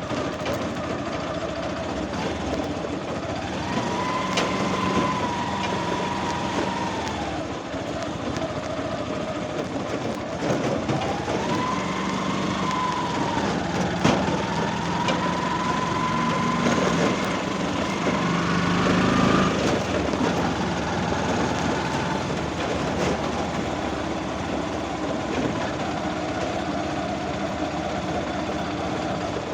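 Motor vehicle engine running steadily, its pitch rising and falling twice, around four seconds in and again from about eleven to nineteen seconds.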